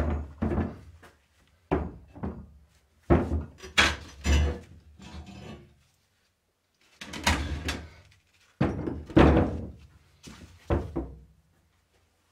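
Rusty parts of an antique grape crusher, its fluted roller and iron frame, being knocked, shifted and set down on a metal workbench: a string of heavy knocks and clanks with some scraping, in bunches, with a short pause about halfway through.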